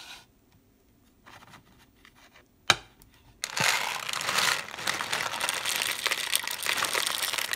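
Dry cat kibble poured from a plastic bottle into a plastic container, a dense rattling patter of pellets that starts about three and a half seconds in. A single sharp click comes just before it.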